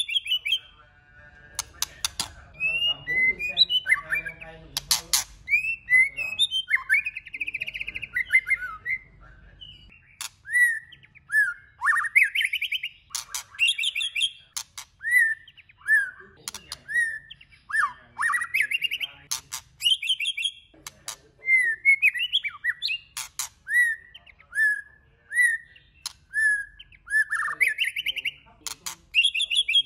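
White-rumped shama singing a varied song of clear whistled phrases that rise and fall, mixed with sharp clicking notes, most of them in the first few seconds.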